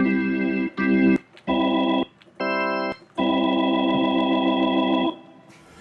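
Drawbar-style organ preset ('Rich Bars') on a Yamaha Montage M synthesizer playing five sustained chords, each stopping cleanly; the fourth is shorter and higher, and the last is held about two seconds.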